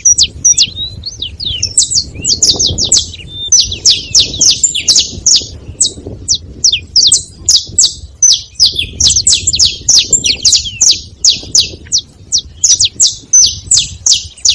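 Saffron finches calling at a feeding spot: a busy, unbroken string of sharp, high chips, many every second, loud and overlapping.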